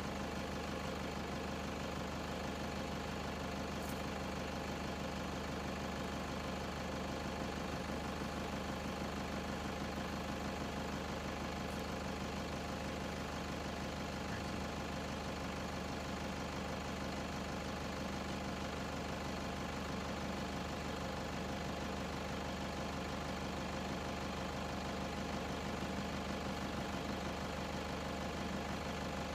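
Vehicle engine idling steadily, an even hum that holds unchanged throughout.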